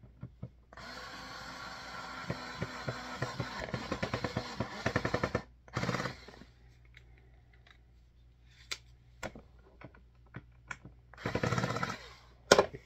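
Cheap cordless electric screwdriver driving screws into a vacuum cleaner's plastic housing. It whirs steadily for about five seconds, with rapid clicking that quickens toward the end, then runs in two short bursts, about six and eleven seconds in, with a sharp click near the end.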